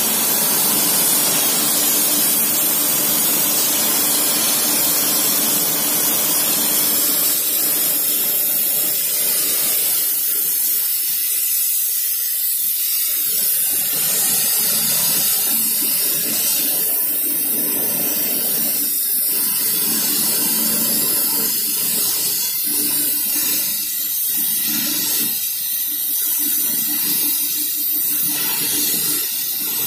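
Oxy-fuel gas torch flame hissing steadily as it heats a bent steel drive shaft for straightening, with a faint low steady hum underneath.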